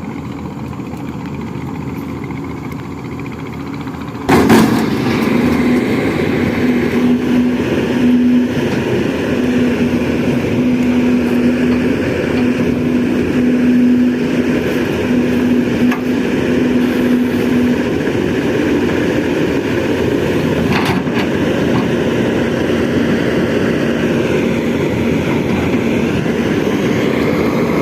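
Excavator diesel engine running steadily. About four seconds in it jumps louder with a sharp knock and carries a steady hum, with another knock later on.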